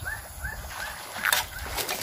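A bird calling: a run of about five short rising-and-falling chirps, about four a second, then two sharp clicks in the second half.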